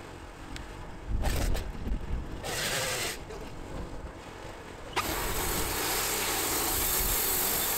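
Wood-Mizer portable band sawmill running, its engine a steady low rumble. About five seconds in a steady hiss starts as the blade begins cutting through the oak log.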